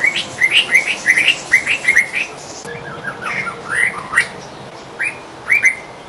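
White-rumped shama (murai batu) singing: a quick run of short whistled notes that sweep upward, then more spaced phrases with short pauses.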